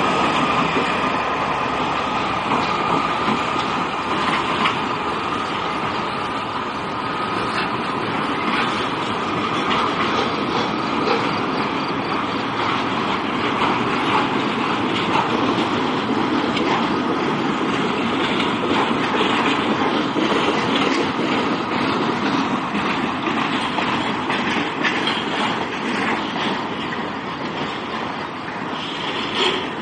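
Norfolk Southern freight train of loaded rail cars rolling steadily past, its wheels clicking over rail joints under a continuous rumble.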